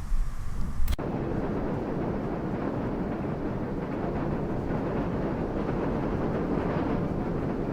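Wind blowing. A gusty low rumble cuts off abruptly about a second in and gives way to a steady, dense rush of wind.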